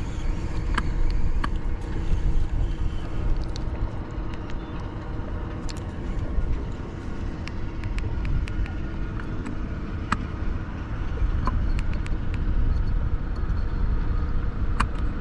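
Motorboat under way: a steady, loud low rumble of engine and water with scattered sharp clicks and slaps.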